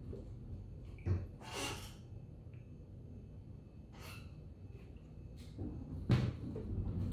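Sharp gasping breaths from a man whose mouth is burning from a Carolina Reaper chip, around swigs of almond milk from a carton. A carton thumps down on a desk about six seconds in, the loudest sound, with a lighter knock about a second in.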